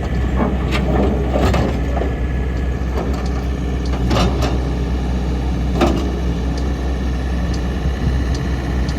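John Deere 315 skid steer loader's engine running steadily, with several sharp metallic clunks over it, the loudest about four and six seconds in.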